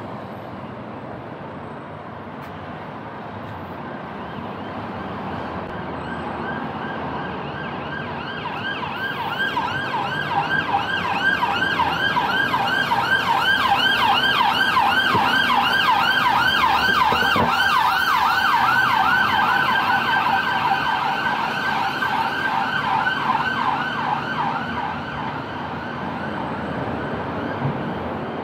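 Emergency vehicle siren in a fast yelp, quick rising sweeps about four a second, growing louder over the first third, loudest in the middle, then fading away as it passes. Steady street traffic runs underneath.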